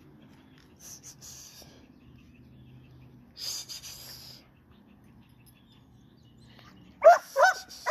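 A young pit bull puppy breathing hard in two short noisy bursts as it tugs at a stick, then three quick, loud yips near the end, each falling in pitch.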